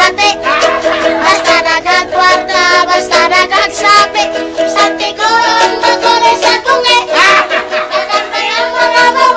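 A song: a voice singing over a plucked string accompaniment.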